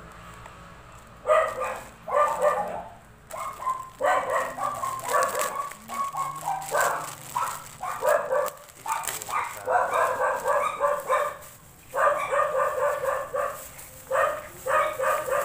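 A dog barking over and over in quick runs of barks, starting about a second in.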